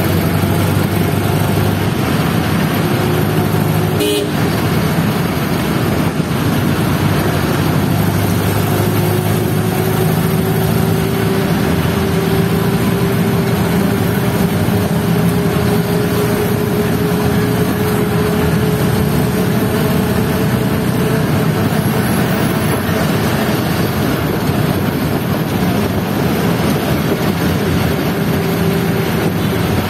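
Steady engine and road noise of a moving vehicle in city traffic, the engine note climbing slowly, with a brief horn toot about four seconds in.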